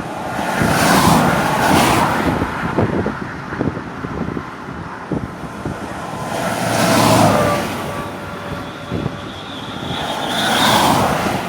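Road vehicles passing close by, three times, each a whoosh of tyre and engine noise that swells and fades over a couple of seconds.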